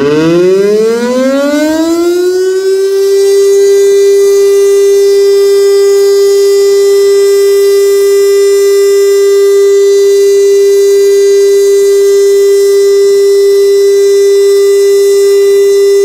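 STL-10 three-horn tornado siren winding up: its pitch rises for the first two to three seconds, then it holds one loud, steady tone as a test signal.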